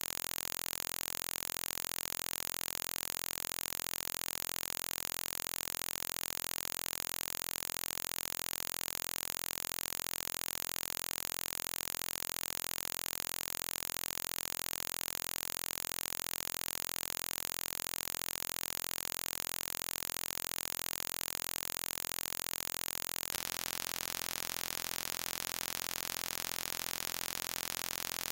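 Steady static-like hiss, strongest in the highest pitches, with no distinct sounds over it.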